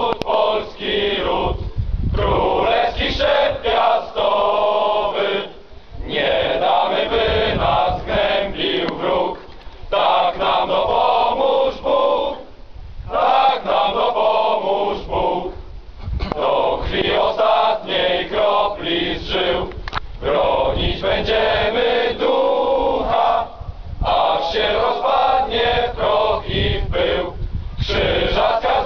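A large group of male soldiers reciting the Polish military oath in unison, phrase by phrase, with short pauses between the phrases.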